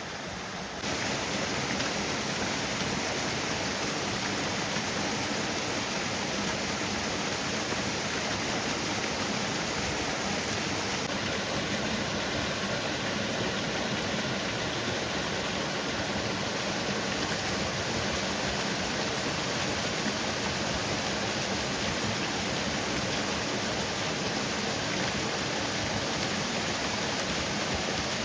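Waterfall pouring, a steady rushing that steps up louder about a second in and then holds even.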